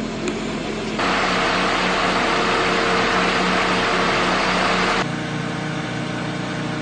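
Diesel engine of a truck-mounted crane running steadily with a hum. It jumps louder and noisier about a second in and drops back near five seconds.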